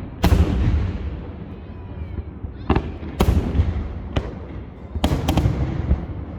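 Aerial fireworks shells bursting: about half a dozen sharp booms, several coming close together, each trailing off in a long rumble.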